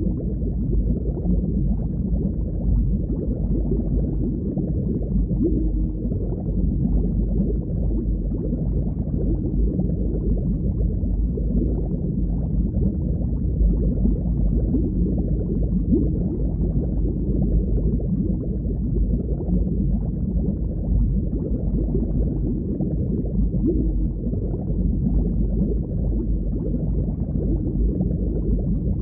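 Underwater ambience: a steady, muffled low rumble of moving water.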